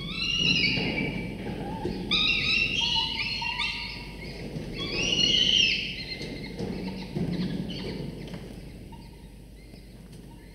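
Peregrine falcon nestlings giving begging calls as the adult feeds them: loud calls that rise and fall in pitch, in three bouts, fading away over the last few seconds.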